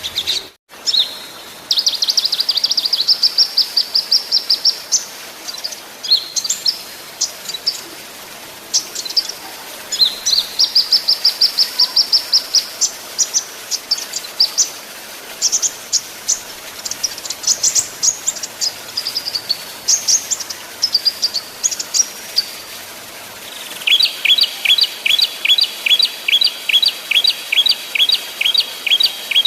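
Small songbirds singing rapid rolling trills mixed with sharp, high chip notes. Near the end comes a long fast run of repeated downward-slurred notes, about four a second. This is the dense 'tembak' and 'ngebren' style of song used to train cage birds.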